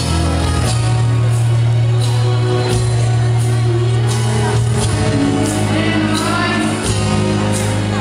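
Ballroom dance music with a singing voice, playing loudly in a large sports hall.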